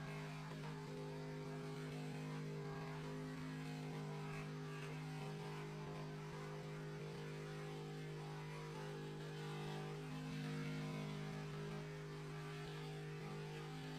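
A steady low hum made of several held tones, the lowest one the strongest, with faint static behind it.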